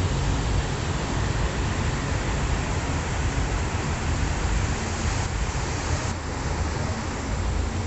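Ocean waves breaking and washing on a shore, a steady noise of surf with a deep low rumble.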